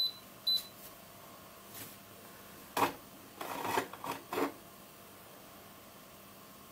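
Two short high beeps half a second apart from a Tchibo Cafissimo Mini capsule coffee machine, then a click and a brief clatter of a ceramic cup knocking against the machine's plastic cup tray as it is slid out and lifted.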